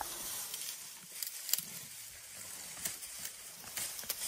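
African elephant feeding on a leafy branch: scattered crackles and snaps of twigs and leaves being stripped and chewed, the sharpest about a second and a half in.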